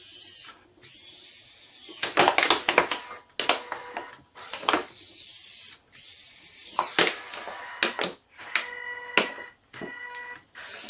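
Empty plastic beverage bottle crackling and crinkling in bursts as the 3D-printed robot gripper squeezes and releases it. Near the end the gripper's hobby servos give a steady buzzing whine.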